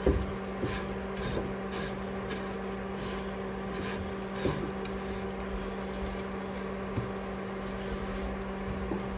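Faint, irregular metallic clicks and light scraping from the threaded adjuster of an aftermarket adjustable rear traction arm being spun by hand to lengthen it. The clicks come about every half second and mostly fall in the first half. Under them is a steady low hum.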